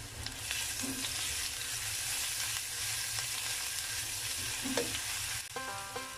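Minced shallots and garlic sizzling in hot oil in a wok while a wooden spatula stirs them, being sautéed until fragrant. Near the end the sizzling gives way to plucked-string music.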